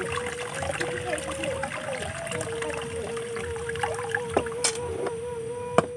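Water trickling and splashing as the rinse water is poured off rice in an aluminium pot, with a few sharp knocks near the end.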